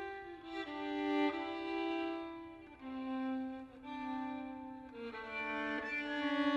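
Solo violin bowing sustained notes, often two at once as double stops, moving to a new pitch every second or so. A low note wavers near the end.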